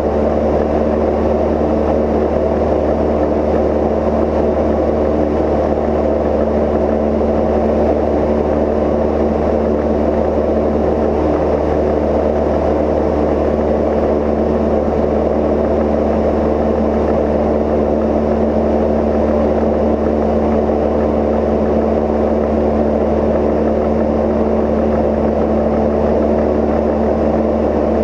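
Steady drone of a Cozy Mk IV's pusher engine and propeller in flight, with a constant low hum and unchanging pitch.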